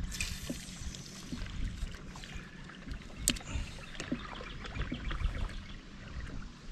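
Water lapping against the hull of a small fishing boat, a steady low rumble with scattered light knocks and clicks; one sharper click comes about three seconds in.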